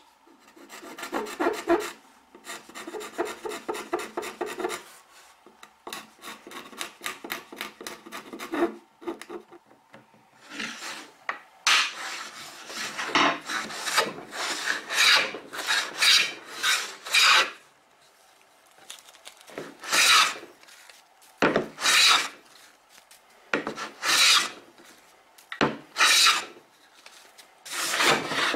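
Wooden coffin smoother planing hardwood, freshly tuned and taking test cuts. It starts with a quick run of fine scraping on wood. From about ten seconds in come separate short plane strokes, roughly sixteen of them, each a crisp shaving cut.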